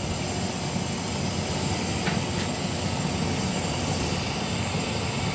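Tap water running steadily from a hose into the wash tub of a twin-tub washing machine as it fills.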